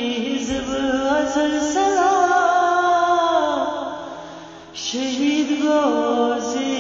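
A man singing an Islamic devotional chant (nasheed) solo, in long wavering, ornamented held notes. One long note fades out about three to four seconds in, and after a short breath the voice comes back in on a new phrase.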